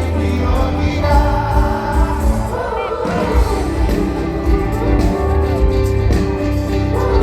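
Music with a singing voice over a strong, pulsing bass.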